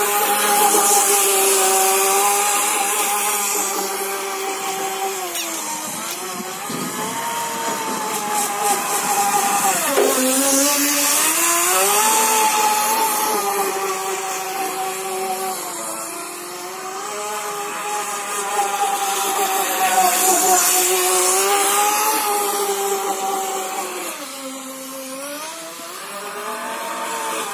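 Radio-controlled speedboat's brushless electric motor (3650 size, 3000 KV, on a 2S LiPo) whining at speed. Its pitch dips and recovers three times as the throttle eases. The sound swells and fades as the boat runs nearer and farther.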